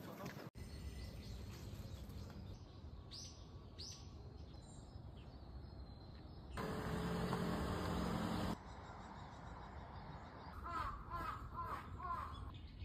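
Quiet outdoor ambience with a crow cawing several times in quick succession near the end. A louder stretch of steady noise fills about two seconds midway.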